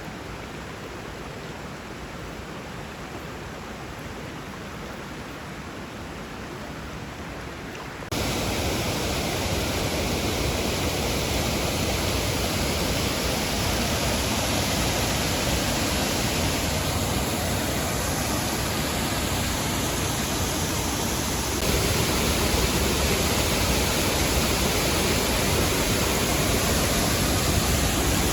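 Steady rush of creek water and a waterfall. It jumps abruptly louder about eight seconds in and again about two-thirds of the way through.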